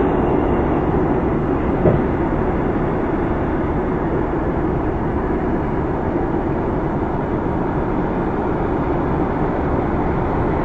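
Vintage off-highway dump truck's diesel engine running steadily as the truck pulls slowly forward, with one brief knock about two seconds in.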